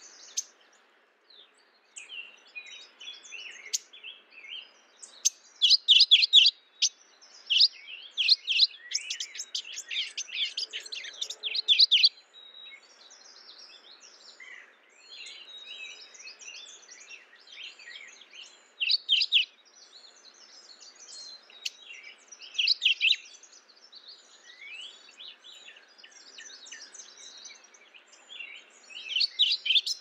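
Mourning warbler singing in short bursts of fast, rolling repeated notes. The bursts come in a loud run from about six to twelve seconds in, then return a few more times later, over steady chirping from other small birds.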